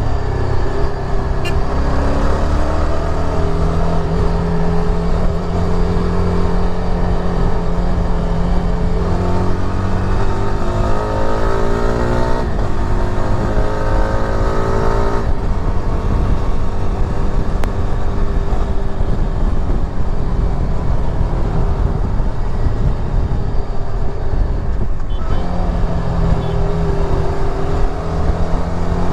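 Yezdi Adventure's 334 cc single-cylinder engine pulling hard, its pitch climbing as it revs up through the gears. There are short breaks at each shift: about twelve and fifteen seconds in, and again near the end. Wind and road noise run beneath it throughout.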